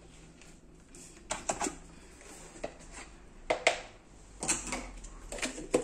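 Irregular clicks and knocks of plastic tubs and a plastic lid being handled, sparse at first and coming in quicker succession near the end.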